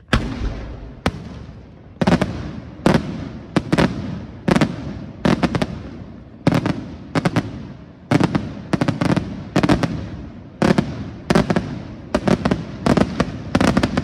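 Daytime fireworks display: aerial shells bursting in a rapid series of loud bangs, often two or three in quick succession, each trailing off in an echo. The first bang comes suddenly out of quiet.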